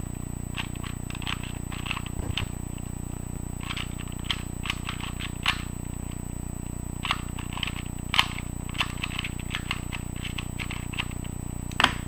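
A 2x2 puzzle cube turned rapidly by hand during a speed solve: quick plastic clicks and clacks in irregular clusters. Near the end comes a sharper knock as the solved cube is set down on a wooden table. A steady low hum runs underneath.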